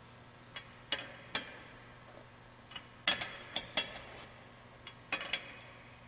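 Metal lug nut wrench clinking against wheel lug nuts as they are tightened one after another: about ten sharp clicks, several in quick pairs, the louder ones with a light metallic ring.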